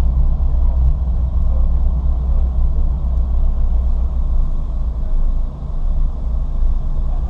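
Ford Fiesta ST driven at speed: a steady low rumble of engine and road noise, dipping briefly about five and a half seconds in.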